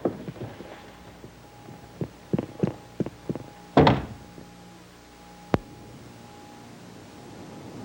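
A run of short, dull knocks and thuds, the loudest a little before the middle, then a single sharp click; a faint steady hum runs underneath.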